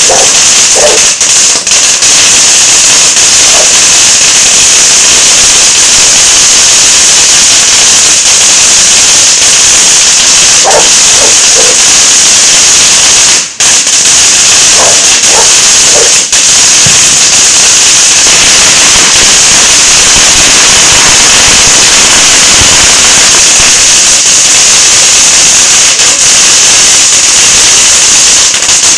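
Continuous dense crackling of firecrackers and fireworks set off close by, loud enough to hold the recording at its ceiling throughout. A few short barks, likely a dog, come through near the start, at about eleven seconds and again around fifteen seconds.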